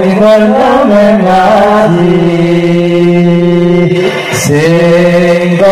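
Male voices chanting sholawat, an Arabic devotional song, in a slow, ornamented melody. A long note is held through the middle, there is a short breath about four seconds in, and then the line resumes.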